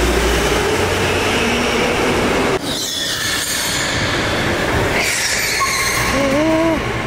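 Go-karts driving through the turns of an indoor concrete track: a steady motor whine that rises in pitch as a kart speeds up, with short wavering tyre squeals near the end. The sound drops suddenly about two and a half seconds in.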